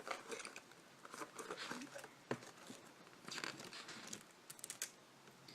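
Pages of a photobook album being turned and handled: several short paper rustles, with a small click about two seconds in.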